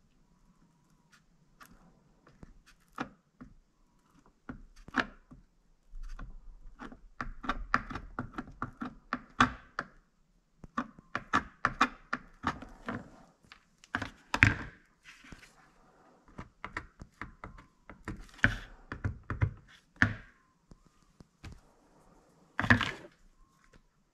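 A soldering iron's tip tapping and scraping on a plastic generator cover as metal screen is melted into it: irregular clicks and knocks in quick clusters, with a few louder thunks.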